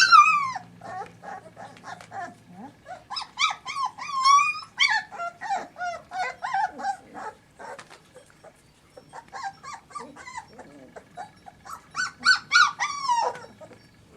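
Small Münsterländer puppies about four weeks old whining and yelping in a run of short, high cries that fall in pitch, loudest at the start and again near the end.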